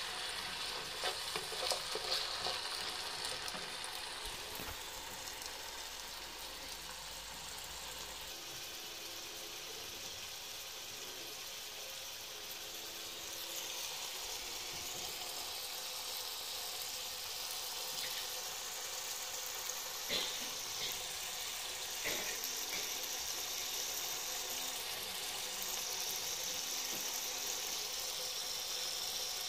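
Diced potatoes sizzling steadily as they fry in oil in a nonstick pan, stirred with a wooden spatula, with a few short knocks.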